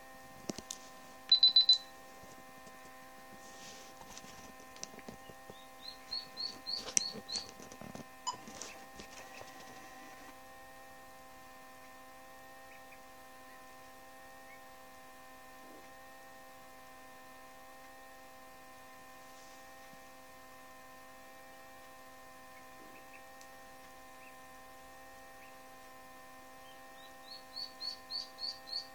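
Duckling peeping: runs of about six short, high, slightly rising peeps in quick succession, a few seconds in and again near the end. Under them is a steady electrical hum. The loudest moment is a short, sharp, high pulsing tone about a second and a half in.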